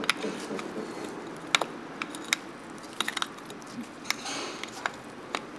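A metal prying tool scraping and clicking against the pressed-on seal and thin tin shell around a water pump shaft, as the old seal is worked off. Irregular sharp metallic clicks, with a quick run of them about three seconds in and a short scrape a little after four seconds.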